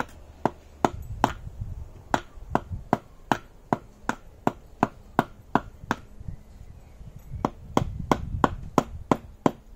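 A short wooden baton knocking on the top of a fresh forked wooden stake, driving it into the ground: sharp wood-on-wood knocks at a steady pace of about two and a half a second.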